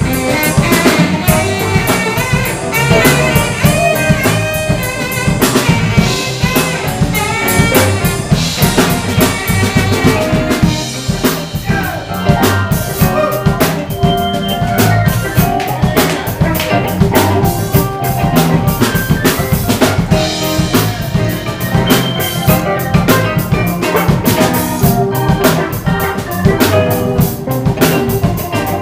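Live blues band playing an instrumental passage: a saxophone lead over a drum kit keeping a steady beat, with electric bass and electric guitar.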